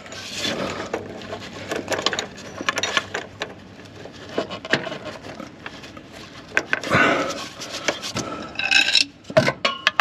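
Gloved hands rubbing and scraping a handbrake cable and its end fitting against the car's underbody while pushing the cable end into its mount, with scattered small clicks and knocks, more of them in the last few seconds.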